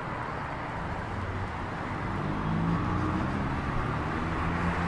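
Street traffic noise: a steady wash of road noise, with a vehicle engine's low hum coming up about two seconds in.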